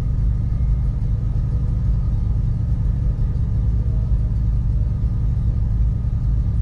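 Car engine idling while stopped, a steady low rumble.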